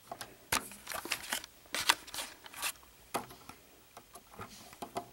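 Plastic LEGO pieces clicking and rattling as fingers work the spring-loaded shooters on a LEGO gunship model: a quick, irregular run of clicks and short scrapes, the sharpest about two seconds in.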